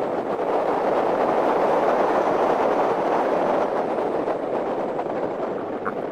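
Hyundai Genesis Coupe driving: a steady rush of road and wind noise with no clear engine note, a little louder between about one and four seconds in.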